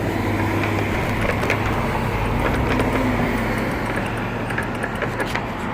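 Street traffic: vehicles driving past with a steady low engine hum and road noise that swells a little in the middle.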